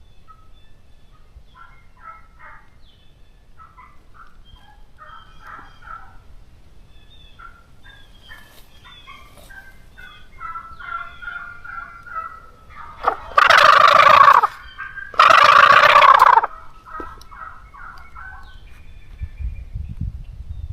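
Two loud turkey gobbles, each lasting over a second, one right after the other about two-thirds of the way through. Faint songbird chirps are scattered before them.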